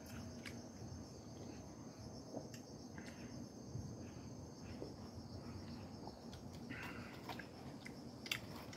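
Steady high insect chirring, with quiet eating sounds of someone sipping broth from a foam instant-ramen cup and eating noodles with chopsticks. A sharp click near the end.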